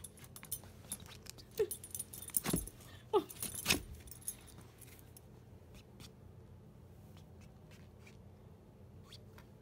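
Cats scuffling under and against a fabric curtain on a rubber floor mat: rustling and clattering, with two louder knocks about two and a half and nearly four seconds in and two short chirps in the first few seconds, then only faint scattered ticks.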